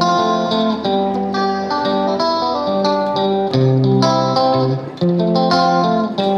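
Background instrumental music: a tune of short, separate notes that keeps going without a break.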